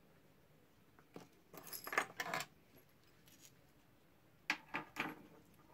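Small metal audio adapters (quarter-inch jack and RCA adapters) clinking and clicking as they are handled and set down on a table. A cluster of clinks comes about two seconds in, and a few more near the end.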